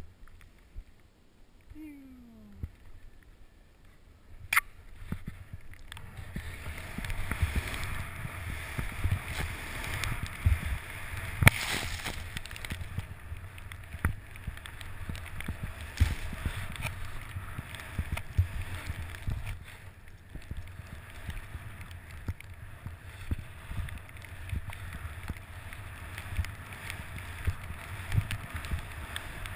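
Snowboard sliding and carving through deep powder snow: a steady hiss of snow with irregular low thumps and wind rumble on the mounted camera's microphone, setting in about six seconds in. A couple of sharp knocks stand out, the loudest near the middle.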